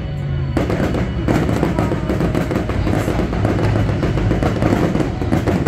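Fireworks bursting and crackling in a dense barrage, thickening about half a second in, over show music with steady low bass tones.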